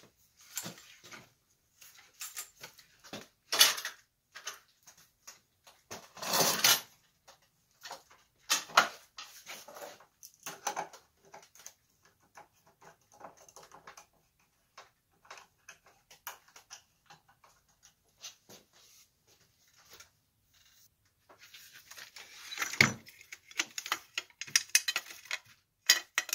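Hands handling a magnifying lamp and its arm in a wooden clamp jig: irregular knocks, clunks and scrapes of metal against wood, with a longer scrape about six seconds in and a heavy thump near the end.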